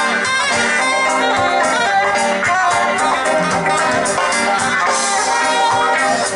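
Live reggae band playing through the stage PA, heard from within the crowd on a phone: continuous, dense band music, thin in the bass.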